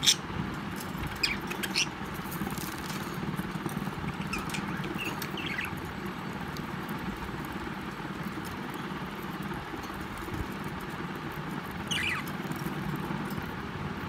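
Budgerigars pecking and nibbling at sprouted mung beans in a plastic bowl, with sharp clicks early on, a few short high chirps in the middle and again near the end, and a steady low hum underneath.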